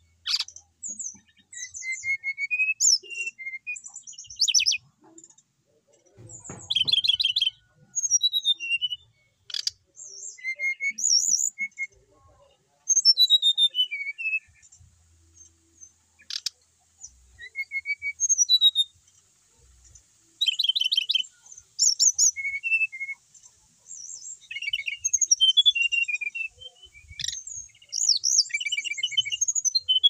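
Brown-chested jungle flycatcher singing: repeated high-pitched phrases of varied whistled notes, some sliding down, and fast rattling trills, each phrase a second or two long with short pauses between.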